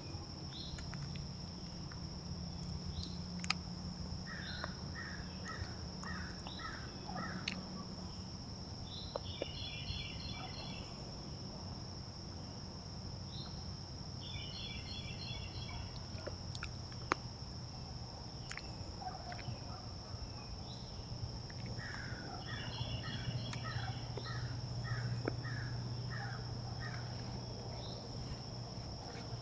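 Woodland birds singing in repeated phrases: runs of short falling notes and quick chattering note groups, over a steady high-pitched insect drone and a low hum. Scattered light clicks and rustles come from deer fawns feeding with their noses in the dry leaf litter.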